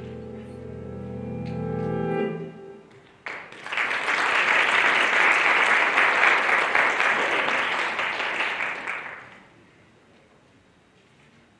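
The dance music ends on a held chord that fades out about two seconds in; about a second later an audience breaks into applause, which runs for about six seconds and then dies away.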